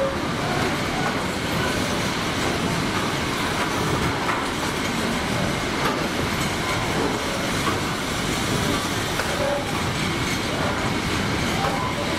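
Container freight train's loaded wagons rolling steadily past, their wheels running on the rails with occasional clicks.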